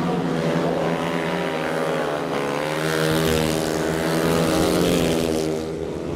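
Speedway motorcycle's single-cylinder 500 cc methanol engine running hard as the bike rides past, rising in pitch and loudness to a peak about five seconds in, then falling away.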